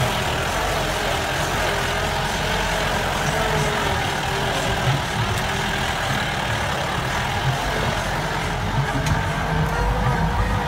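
Mahindra Bolero off-road vehicle's engine running under load as it crawls uphill on a rough dirt road, heard from on board: a steady rumble with a whine that wavers slightly in pitch.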